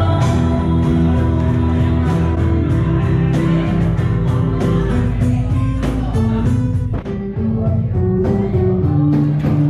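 Music: a song with guitar and singing over a beat.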